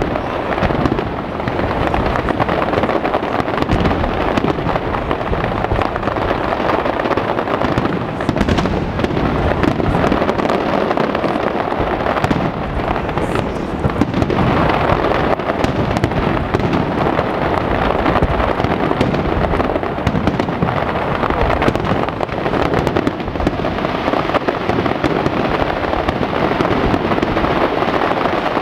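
Aerial fireworks shells bursting in a dense, continuous barrage, the bangs running together with no pause.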